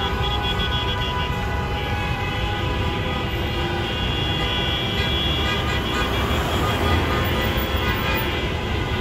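Many car horns honking at once in a celebratory motorcade, held tones overlapping over the steady rumble of slow-moving traffic.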